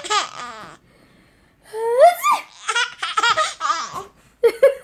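Baby laughing in bursts: a short laugh, a pause, then a squealing rise about two seconds in followed by quick rhythmic laughs.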